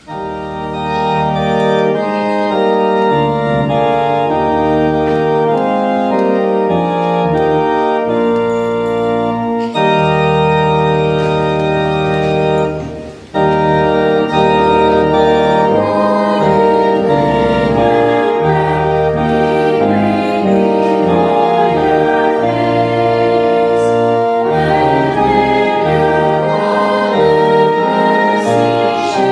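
Church organ playing a hymn tune in held chords, with a short break about thirteen seconds in.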